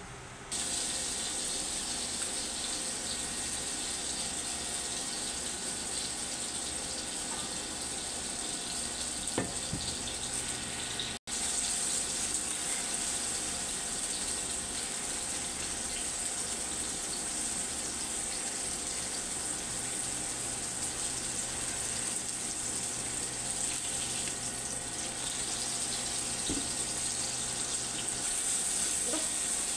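Diced chicken frying in oil in a wok, a steady sizzle that breaks off for an instant about eleven seconds in.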